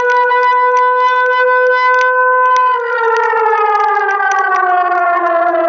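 Outdoor civil defense warning siren sounding loudly during a public alarm test. It holds one steady tone, then about three seconds in begins falling slowly in pitch.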